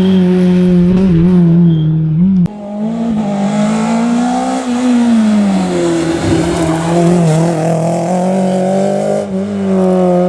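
Rally car engine running hard at high revs, with a sudden break in the sound about two and a half seconds in; the revs then climb and drop back, with tyre noise through the middle.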